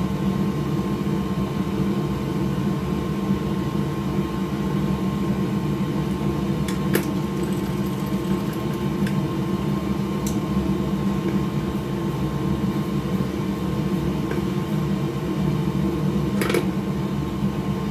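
Steady machine hum of a fan-like motor, with a few light clicks of small parts being handled on the workbench.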